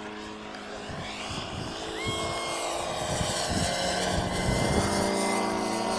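Thunder Tiger Fury radio-controlled model plane's engine and propeller running at a steady pitch in flight, growing louder as the plane comes down for a low pass.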